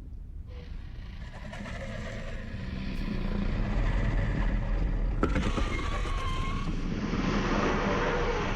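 A deep, rumbling soundscape from a TV drama's soundtrack that slowly grows louder, with a sharp click about five seconds in.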